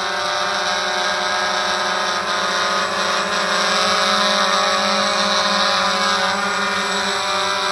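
Walkera QR X350 Pro quadcopter in flight close by: the steady, many-toned buzz of its four propellers, a little louder around the middle as it comes in near.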